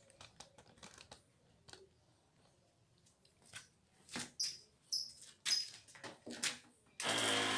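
Scattered clicks and small handling noises, then about seven seconds in a small battery-powered electric sprayer pump switches on and runs with a steady pitched hum.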